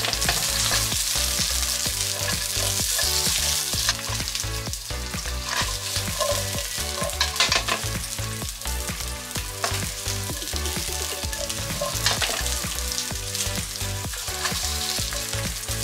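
Onion pieces sizzling in hot lard in a nonstick frying pan as they are laid in one at a time, the sizzle loudest in the first few seconds. Light clicks here and there as pieces go in.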